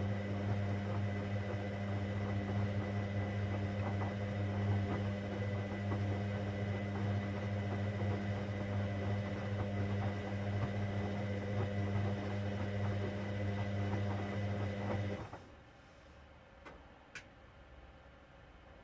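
Hoover Dynamic Next washing machine running on a cotton 60 cycle: a steady low hum with light ticking that stops abruptly about fifteen seconds in, followed by a couple of faint clicks.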